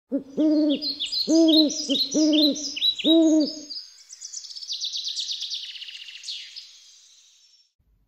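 Birdsong: a low hooting call repeated four times, evenly spaced just under a second apart, over higher chirping. After the hoots stop, a rapid high trill runs on and fades out.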